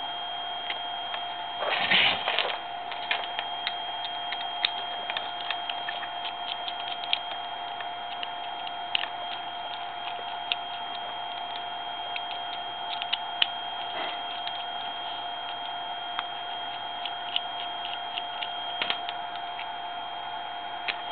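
Scattered small clicks and ticks of a small screwdriver taking the screws out of a plastic hobby servo's case, and of small parts being handled and set down, with a louder scrape about two seconds in. A steady high-pitched whine runs underneath.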